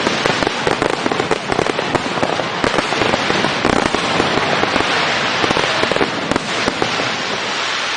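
Fireworks going off in a dense, continuous barrage of rapid crackling pops.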